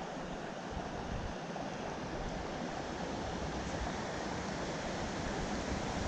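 Steady rush of a creek's flowing water, an even hiss with no breaks.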